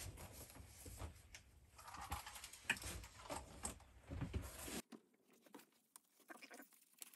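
Faint, scattered knocks and rustles of handling at a workbench, then, about five seconds in, the soft crinkle and rustle of black disposable gloves being pulled on.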